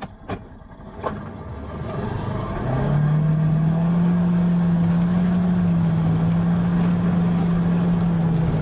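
A couple of short clicks, then a vehicle pulling away: its noise builds over about two seconds and settles into a steady, loud running hum with one strong steady low tone.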